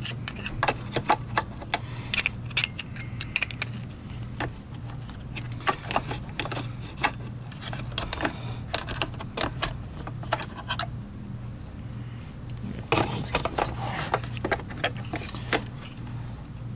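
Irregular clicks and clacks of the plastic housing and parts of a Wessel-Werk EBK 360 power brush being handled, with a pause about two-thirds of the way through, over a steady low hum.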